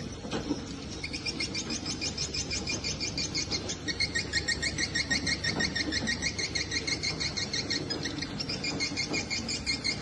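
Swiftlet twittering: rapid, evenly repeated high chirps that start about a second in and change pattern around four seconds in.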